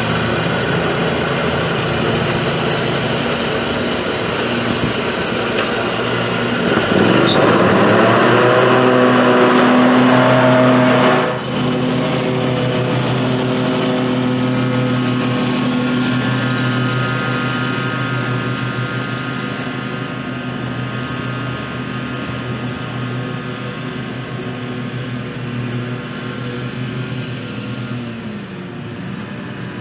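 Scag zero-turn riding mower's engine running. About seven seconds in it revs up and is loudest for a few seconds, dips briefly, then runs steadily and slowly fades as the mower moves away across the lawn.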